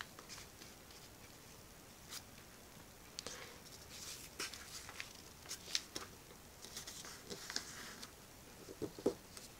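A sheet of printer paper being folded by hand: faint rustles and short crackles as fingers crease and smooth the folds, coming at irregular moments.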